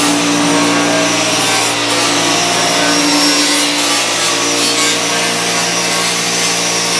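A power tool cutting into a car's rusted sheet-metal rocker and pinch weld: a steady, continuous rasping cut over a motor hum.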